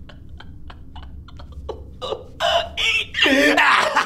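A man laughing wildly: short, quiet giggling snatches at first, breaking into loud, high laughter about two seconds in.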